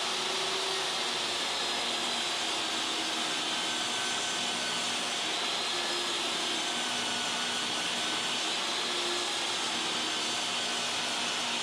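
Steady whir of an electric motor with a rushing-air hiss, unchanging throughout, with no cutting heard: a workshop power tool running freely.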